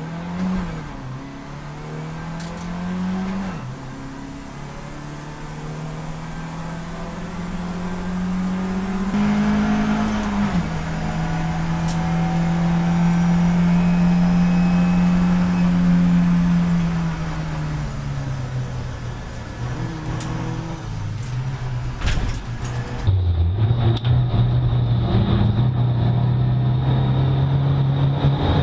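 BMW 318ti Cup race car engine heard from inside the cabin, accelerating hard through the gears. The revs climb and drop sharply at each upshift, hold high for several seconds, then fall away. Near the end the sound changes abruptly to another car's in-car sound, running at steadier revs.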